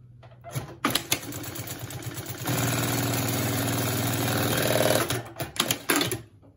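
Consew 2206RB-14-7-DD direct-drive walking-foot lockstitch machine sewing: it starts at a slower stitch rate, then about two seconds later steps up to a steady fast run, the programmed soft start giving way to full speed under a hard press on the pedal. It winds down with a few sharp clacks and stops near the end.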